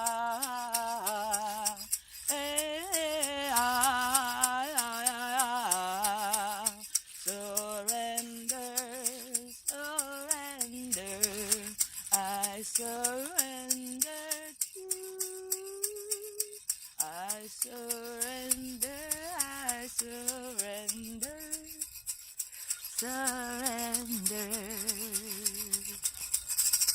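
A woman sings wordless, wavering melodic lines with vibrato, improvised, over a hand rattle shaken in a steady beat of about two strokes a second. The singing breaks off near the end while the rattle carries on.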